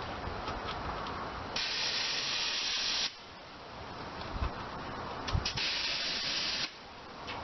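Compressed air hissing from an air chuck into a tyre's inner tube in two bursts of about a second and a half each, putting a little air in the tube.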